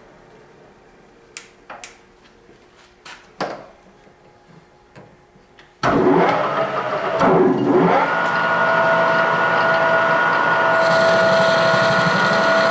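A few light clicks and knocks, then about six seconds in the Goodway GW1660 lathe's spindle starts suddenly. It runs up and settles into a steady gear-driven whine.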